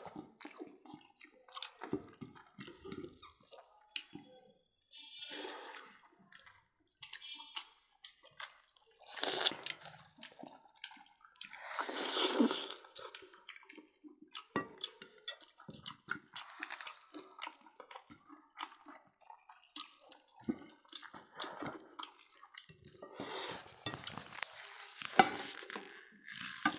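Close-miked eating sounds of people eating roast pork and rice with their hands: wet chewing and lip smacks in many short irregular clicks, with a longer breathy noise about twelve seconds in.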